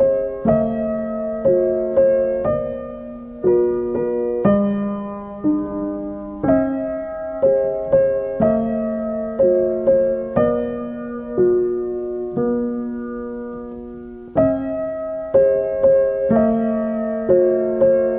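Background piano music: a slow, gentle melody of struck notes, about one a second, each ringing and fading before the next.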